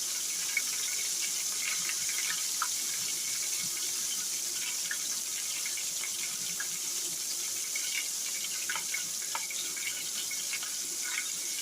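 Flour-breaded liver frying in hot oil: a steady sizzle with scattered small pops and crackles.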